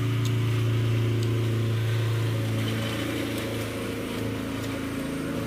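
A steady low mechanical hum, like an engine running, with a few faint light ticks above it.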